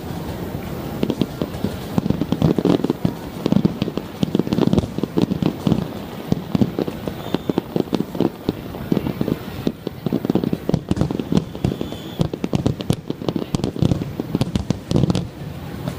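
Aerial fireworks shells bursting in a dense, continuous barrage: rapid overlapping booms and pops, several a second, with crackle between them.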